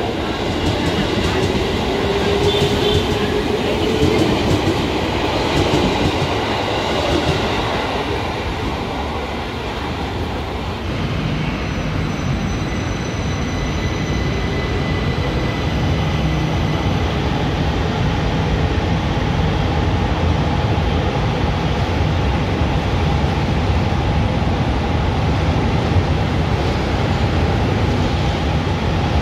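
Electric commuter train pulling away, its IGBT-VVVF inverter and traction motors whining and rising in pitch over the rumble of the cars; the car number marks it as an ex-JR 205-5000 series. About ten seconds in, a different electric train takes over: an LRT Jabodebek train with steady high inverter tones, then a motor whine rising in pitch as it accelerates, over the steady rumble of the passing cars.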